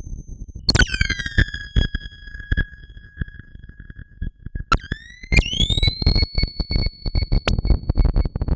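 Alesis Andromeda analog synthesizer playing a noisy sound-effect patch built on audio-rate modulation: irregular crackling clicks over a low rumble, with high whistling tones that swoop down about a second in and swoop up around five seconds, then hold steady.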